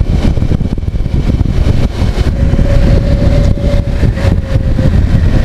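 Kawasaki Versys 650 motorcycle riding at road speed: heavy wind rumble on the helmet camera's microphone, with the parallel-twin engine's steady running note showing through for a few seconds in the middle.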